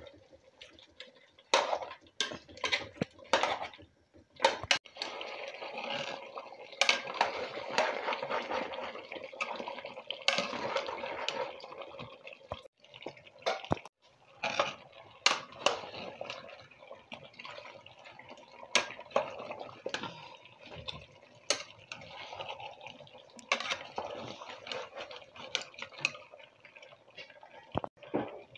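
Beef and potato curry bubbling and sizzling in a metal pot, with a metal spoon stirring it and knocking against the pot in frequent sharp clinks.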